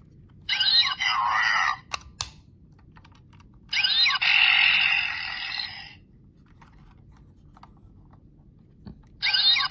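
Toy Kamen Rider Kabuto transformation belt playing its electronic sound effects and voice calls through its small, tinny speaker, in three bursts, with two sharp clicks about two seconds in.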